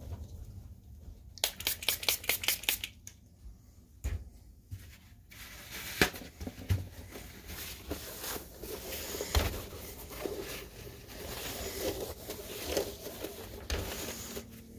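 A paper towel rustling and rubbing over the plastic case of a projector as it is wiped clean, with a few light knocks. About a second and a half in, a quick run of crackling clicks.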